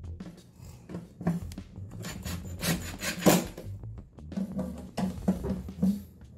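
Hands setting metal screws into a garbage-disposal mounting ring on the underside of a sink: small metallic clicks and scrapes, with a few louder knocks.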